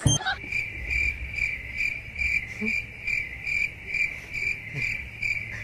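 Cricket chirping in a steady rhythm, a little over two high chirps a second, over a low hum.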